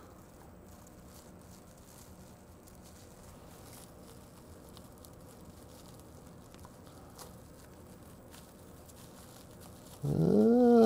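Faint crinkling of plastic wrap, with a few light clicks, as a wrapped camera is pushed and worked down into a machined aluminum case, over a faint low steady hum.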